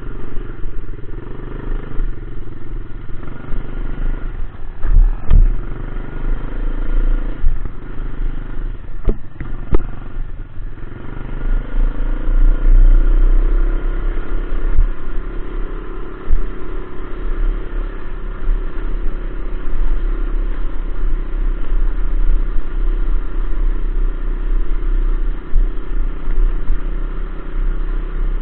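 Dirt bike engine running under way, heard close from the handlebars, its pitch shifting as the rider works the throttle, over a heavy low rumble. A few sharp knocks and rattles from bumps come about five seconds in and again around nine to ten seconds in.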